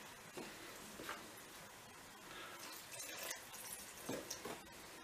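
Lukewarm water trickling and dripping from a drinking glass into a plastic bowl of flour, with a few light clicks of a metal spoon stirring it into a stiff dough.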